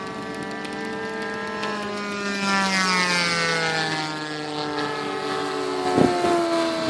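Engines of radio-controlled model warbirds, a Spitfire and a Hurricane, flying past, their pitch dropping as they go by. A brief thump comes near the end.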